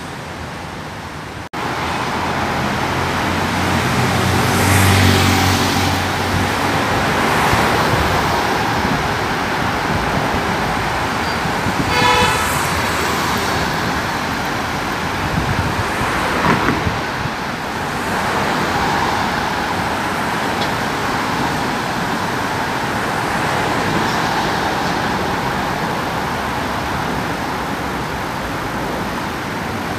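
Road traffic on a city street: cars driving past with engine and tyre noise, the loudest pass about five seconds in. A short horn toot sounds about twelve seconds in.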